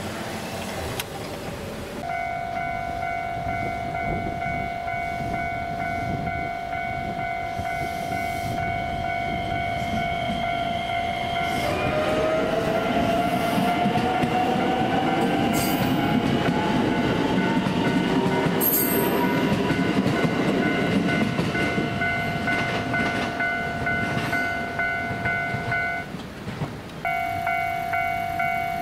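A level-crossing warning bell ringing in a steady electronic tone while a JR West 225-series electric train runs past. The train's VVVF inverter whine rises in pitch as it accelerates. The bell stops briefly near the end, then starts again.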